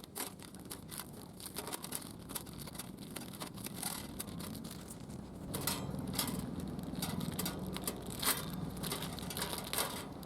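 A series of light, irregular clicks and taps, with a low steady hum coming in about halfway through.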